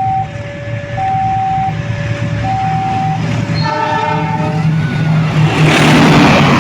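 A railway level-crossing alarm sounding a two-tone warning, alternating about every 0.7 s. About halfway through, a diesel locomotive's horn sounds. Near the end, the approaching train rushes past loudly.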